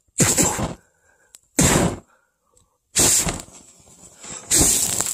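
Four short bursts of rushing air buffeting the microphone, each half a second to a second long, the last two the longest.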